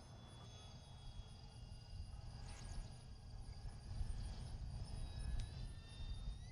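Faint high whine of the FMS Cessna 182's electric motor in flight, several thin steady tones with one falling in pitch about five seconds in, over a low rumble of wind on the microphone.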